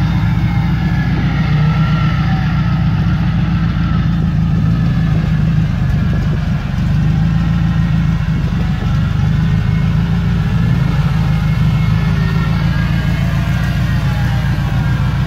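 Off-road 4x4 engine running steadily at low revs.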